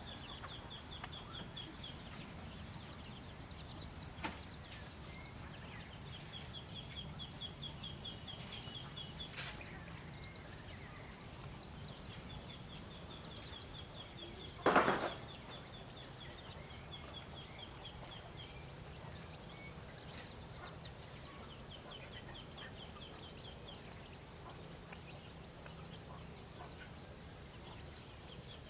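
Outdoor ambience with a bird's high, evenly pulsed trill of about two seconds, repeated every five to six seconds. Halfway through there is one sharp, short, louder sound.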